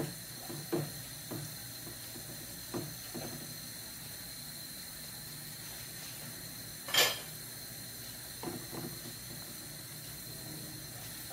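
Wooden spatula stirring a thick curry in a metal kadhai, scraping and knocking against the pan now and then, with one louder knock about seven seconds in.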